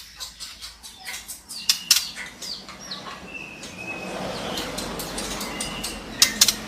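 Female white-rumped shama calling: a rapid run of sharp clicks and short high chirps, with a few brief whistled notes and two loud clicks about two seconds in and again near the end.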